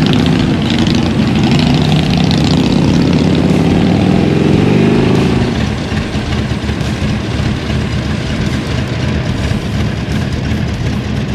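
Motorcycle engine accelerating under the rider, its pitch climbing steadily for about five seconds, then easing off to a lower, steadier run.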